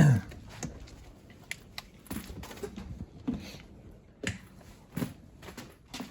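Clutch cable and pedal-box parts being handled and fitted: scattered light clicks and knocks, with a louder knock right at the start.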